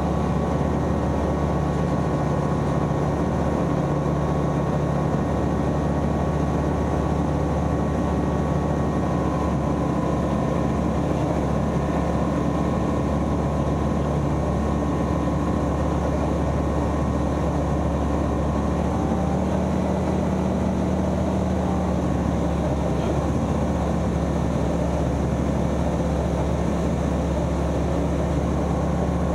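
Steady drone of a light aeroplane's single piston engine and propeller, heard inside the cockpit while the aircraft climbs.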